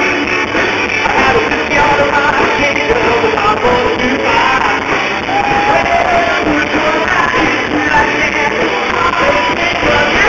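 Live rock band playing loudly, with a singer's voice over guitar and drums.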